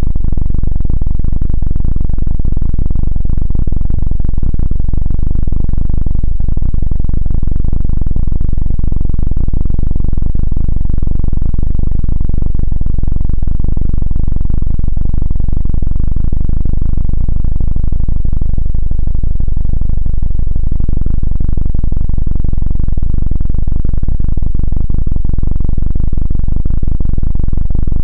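Helicopter 'dududu' rotor sound effect: a loud, heavily distorted low drone with rapid pulsing that holds steady throughout.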